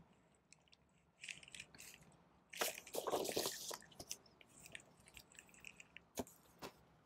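Vinyl LP paper sleeves and cardboard album jackets being handled: faint rustling and sliding, loudest about three seconds in, with a sharp tap about six seconds in.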